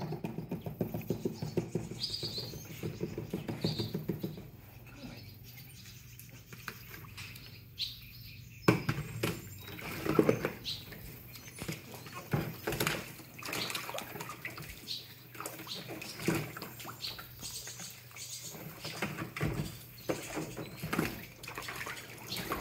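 Icelandic Sheepdog puppies' paws splashing and pattering in the shallow water of a plastic kiddie pool, with scattered high squeaks from the puppies. The splashing picks up about nine seconds in.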